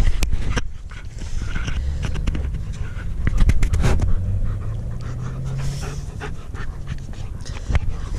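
German Shepherd panting hard while mouthing and chewing at a person's sleeved arm, with scattered short clicks and rustling over a steady low rumble.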